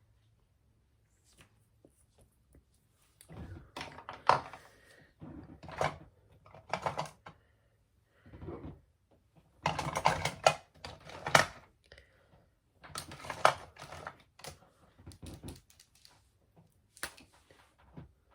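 Small objects clicking and knocking against one another in irregular clusters, as when makeup items are handled and set down.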